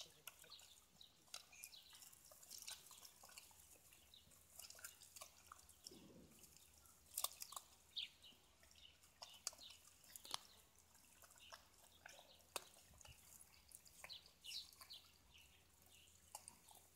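Several puppies eating broth-soaked bulgur from a plastic tub: faint, irregular wet chewing and lapping clicks as they eat hungrily.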